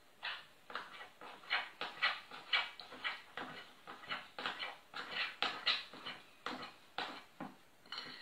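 A hand mixing soft lard cookie dough in a glass bowl, in rhythmic strokes about three a second, working the lard into the flour.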